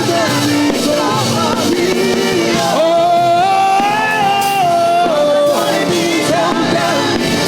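Live gospel worship music: a voice sings a melody over band accompaniment, holding one long note for about two and a half seconds in the middle.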